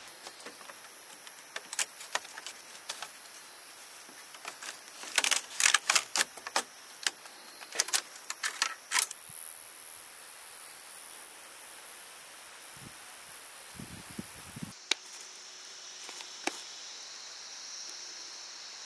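Insects calling in a steady high-pitched drone, with a cluster of sharp clicks and knocks from about five to nine seconds in. Near the end the drone changes abruptly to a thinner chorus of steady insect tones.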